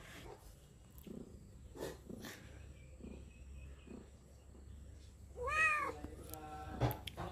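Pregnant tabby cat in labour meowing once, a drawn call that rises then falls in pitch, about five and a half seconds in.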